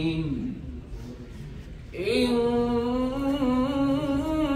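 Male Quran reciter chanting in melodic tajweed style into a microphone. A phrase tails off just after the start, there is a pause of about a second and a half, then he holds a long drawn-out note with a slowly wavering pitch.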